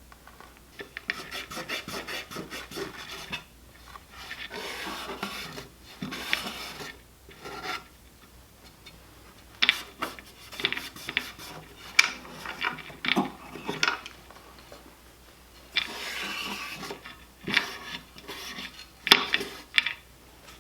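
Scrubbing and rubbing on the old outboard motor's parts during cleaning: irregular bursts of back-and-forth scraping strokes, with a few sharp knocks.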